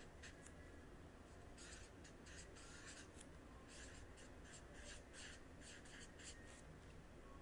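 Felt-tip permanent marker writing on paper: faint, short strokes in quick runs with brief pauses.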